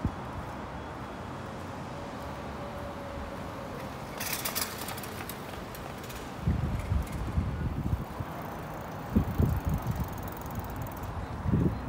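Steady hum of city traffic. About four seconds in there is a brief high hiss with fast ticking, and in the second half irregular low buffeting of wind on the microphone.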